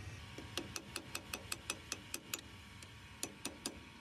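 Ratchet clicking in quick, even strokes, about five a second, as a fitting on a portable line-boring bar in an excavator boom link bore is turned by hand. A long run of clicks stops about two and a half seconds in, and a short run of four follows.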